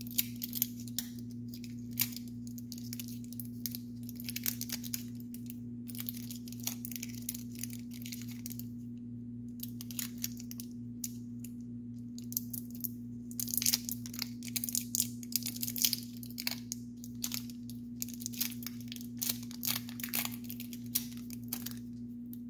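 Tape being picked and peeled off the thermistor wires at a 3D printer's hotend: irregular crackly tearing and crinkling in clusters, with scattered clicks, over a steady low hum.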